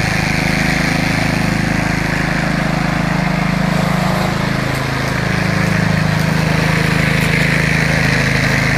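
Small gas engine of a walk-behind string trimmer running steadily as the machine is pushed along, its level dipping slightly about halfway through.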